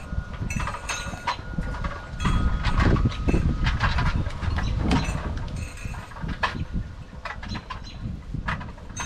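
Wind buffeting the microphone with an uneven low rumble, with scattered sharp clicks and light metallic clinks over it.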